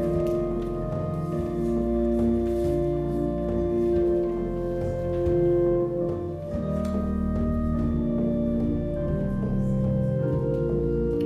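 Organ playing slow, sustained chords, the notes held without fading and the harmony shifting every second or two.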